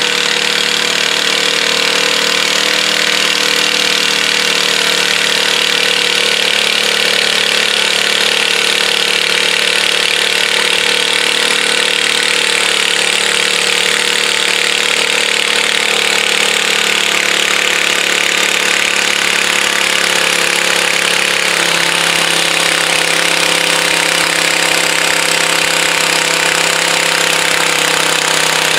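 Garden tractor engine running hard while pulling a weight-transfer sled, a loud steady drone with a rough hiss above it. Its pitch slowly sinks as the sled's load builds, and drops a step about three quarters of the way through.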